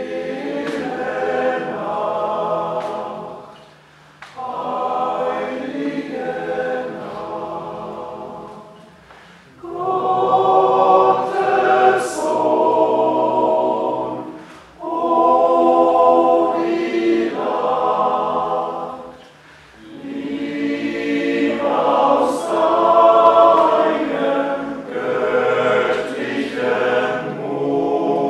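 Men's choir singing a cappella in several parts, in phrases of a few seconds with short breaks between them.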